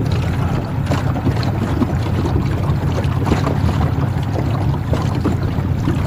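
Wind buffeting the microphone in a steady low rumble, with choppy water splashing and lapping in many small irregular splashes.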